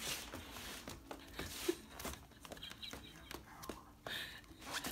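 Faint, irregular soft taps and shuffles of a corgi's booted paws on a hardwood floor, with a brief rustle about four seconds in.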